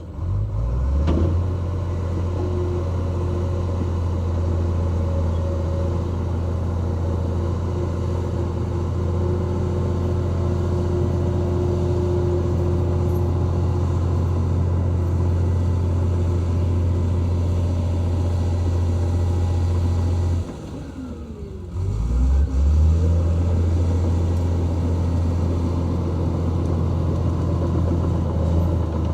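Heavy earthmoving machine's diesel engine running steadily with a deep, even drone. It drops away briefly about twenty seconds in and comes back about a second and a half later.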